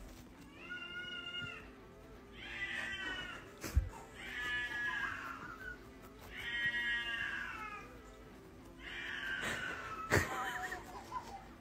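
A cat yowling: five drawn-out, wavering calls of about a second each. Two sharp knocks cut in, one a little before the middle and a louder one near the end.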